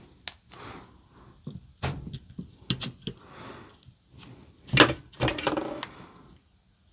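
Irregular small clicks, taps and rustles of handling as a replacement circuit board is pressed down into place on a Milwaukee M18 battery pack with gloved fingers, the loudest knocks about five seconds in.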